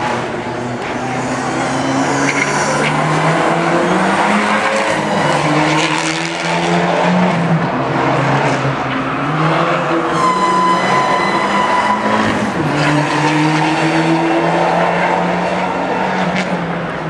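Fiat 500 race car driven hard through a tight course, its engine revving up and down, with the tyres squealing for a couple of seconds about ten seconds in.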